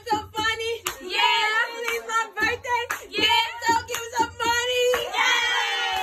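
Voices singing and whooping, with high bending pitch, broken by sharp claps or slaps; near the end one long note slides down in pitch.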